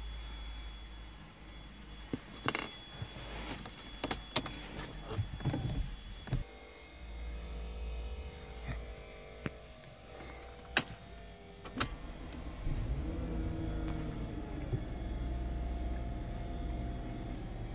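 Clicks and small handling knocks inside a car, then from about two-thirds of the way through a steady low hum of the car's engine running.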